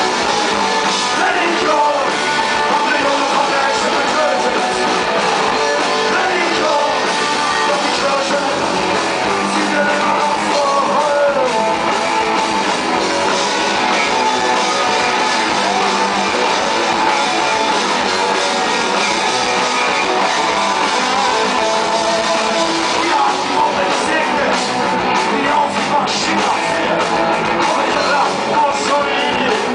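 Punk rock band playing live and loud, with electric guitar and a singer's vocal over the band. Recorded from within the crowd, it sounds thin, with little bass.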